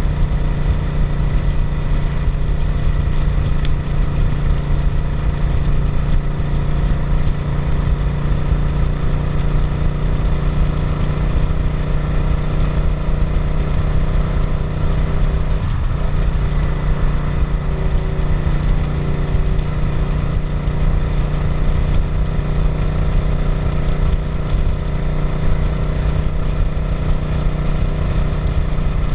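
Suzuki SV650's 90-degree V-twin engine running at a steady pace under way, with a brief dip and recovery in pitch about halfway through.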